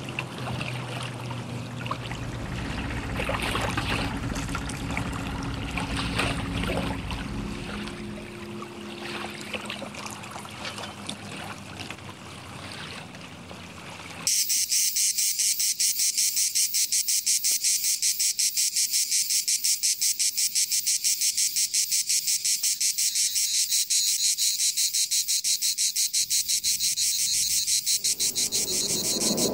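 A loud chorus of cicadas: a dense, evenly pulsing high buzz that starts abruptly about halfway through. Before it comes quieter harbour ambience with a low steady hum, and a lower rumble joins near the end.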